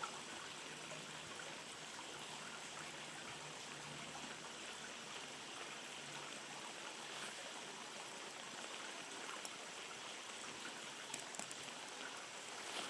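A stream running steadily, an even rushing of flowing water.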